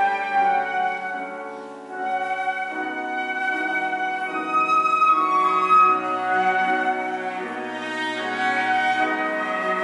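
Flute, cello and piano trio playing classical chamber music, the flute carrying sustained melody notes over bowed cello and piano. The sound thins briefly about a second and a half in, then the full ensemble resumes.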